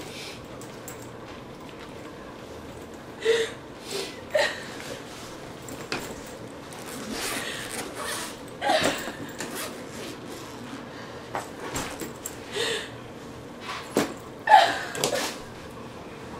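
Scattered rustles, soft knocks and clicks of suitcases and clothes being handled while packing, in a small room, with a louder clatter near the end.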